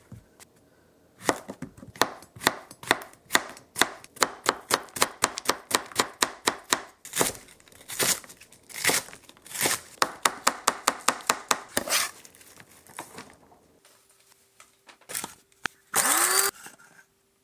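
Kitchen knife chopping green squash and bok choy on a plastic cutting board: a long run of sharp strokes, a few a second, that stops about thirteen seconds in. Near the end comes a faint steady hum and a brief loud rushing burst.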